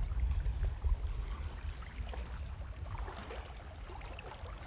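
Wind rumbling on the microphone over light splashing and sloshing of water around legs wading through shallow sea water.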